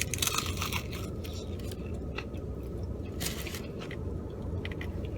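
Close-up chewing of crisp, crunchy Popeyes fried chicken thigh: irregular crackling crunches, thickest in the first second, with a few more about two and three seconds in.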